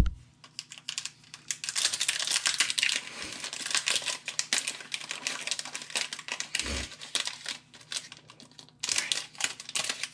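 Foil wrapper of a Pokémon TCG Darkness Ablaze booster pack crinkling as it is handled and opened by hand, with one soft low thump about two-thirds of the way through.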